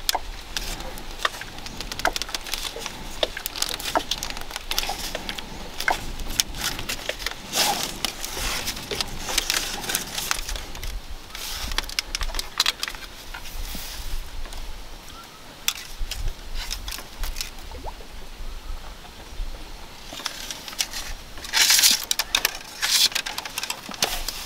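Thin split-bamboo strips crackling and clicking as they are bent, pulled and worked through the rim of a woven bamboo basket, in irregular bursts with a louder rustling burst near the end.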